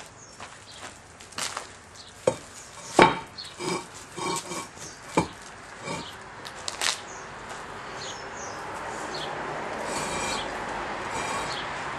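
Pavers knocking and scraping against one another as they are lifted and stacked, a run of sharp clacks and grinding rubs in the first half, the loudest about three seconds in. The knocks stop about seven seconds in, giving way to a steady rushing noise.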